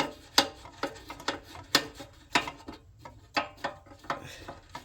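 A hand tool clicking and knocking on metal as a bolt holding the water blaster's fuel tank is undone: a run of sharp, irregular clicks about two a second.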